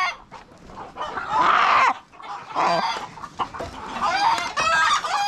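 A flock of chickens and roosters clucking and calling, with one longer, louder call about a second in and a run of short calls near the end.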